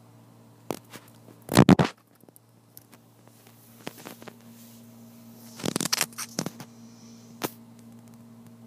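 A pet's teeth making crunching, grinding clicks in short clusters: a loud burst about one and a half seconds in, another around six seconds, and a few single clicks between.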